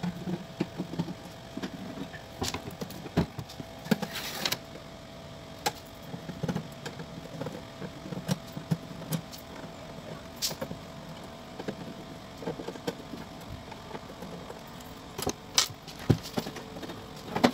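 Screws being undone with a hand screwdriver and the casing of an electrosurgical unit being handled as it is opened: scattered clicks, taps and knocks, with a short scraping rustle about four seconds in, over a faint steady hum.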